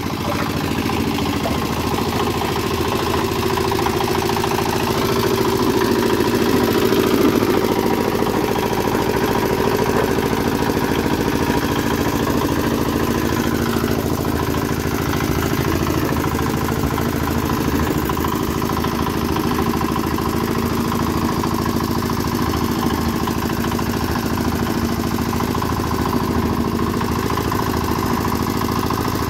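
Engine-driven concrete mixer running steadily.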